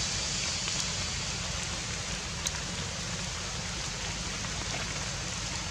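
Steady outdoor background hiss with a rain-like texture, with a faint click about two and a half seconds in.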